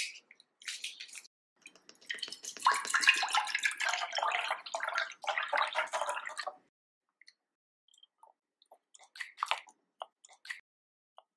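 A brief rustle of pandan leaves being handled, then liquid poured in a steady stream into a saucepan of coconut milk for several seconds. Near the end, a few soft plops and light spoon scrapes as diced pumpkin goes into the pot.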